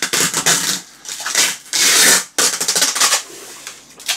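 Black plastic wrapping around a package crinkling and rustling as it is handled and pulled at, in several loud bursts of crackling.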